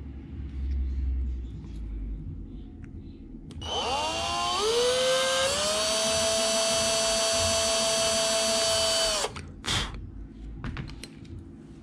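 Electric drill with a small bit, about 1 mm, drilling a hole in a small board. The motor starts about three and a half seconds in with a rising whine, runs steadily, and cuts off suddenly near nine seconds, followed by a brief burst of the motor just after.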